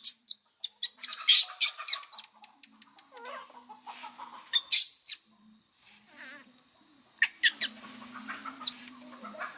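Baby monkey squealing in short, high-pitched bursts while it is rubbed dry in a towel, in three clusters: about a second in, around five seconds, and just after seven seconds.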